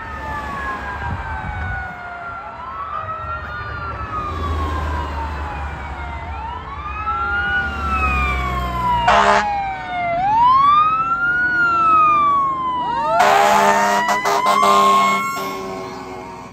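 Fire engine on an emergency run, its siren wailing in repeated long sweeps that rise quickly and fall slowly, over a low engine rumble. A short blast of the air horn comes about nine seconds in, and a longer run of air horn blasts near the end as the siren winds up again and the truck passes close by.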